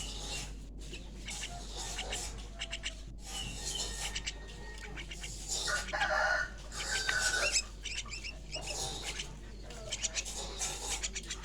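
Young jalak (starling) chicks calling with many short, rapid chirps and squawks, with a louder burst of calls about six seconds in.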